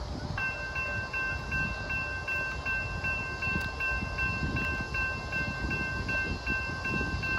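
Railroad crossing bell starts ringing about half a second in and keeps striking about two and a half times a second, signalling that the crossing has activated for an approaching train. Under it is a steady low rumble.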